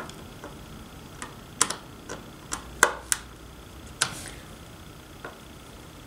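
Scattered sharp clicks and taps, about ten of them at irregular intervals with the loudest a little before three seconds in, as a screwdriver and fingers handle a small plastic door stopper screwed into a sliding door's top rail.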